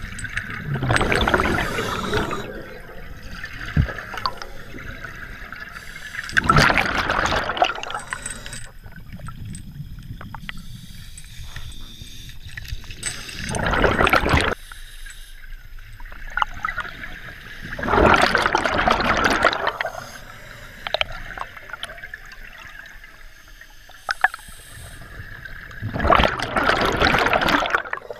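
Scuba regulator breathing underwater: five surges of exhaled bubbles, one every five to seven seconds, with a quieter hiss of inhaling between them. A few sharp clicks come in between.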